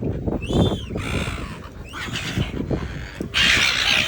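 Seagulls calling with short harsh squawks, one rising-and-falling cry about half a second in, over a low rumble on the microphone. A loud harsh burst comes near the end.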